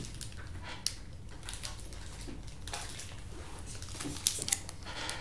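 Plastic candy-bar wrapper crinkling as it is handled and torn open: a string of crisp crackles with a few sharper clicks, the loudest about a second in and twice near the end.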